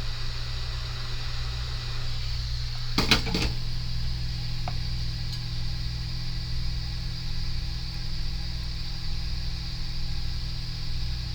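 Steady hum and hiss of an electric blower on a soldering bench. About three seconds in there is a quick pair of sharp clicks, after which a faint low tone joins the hum.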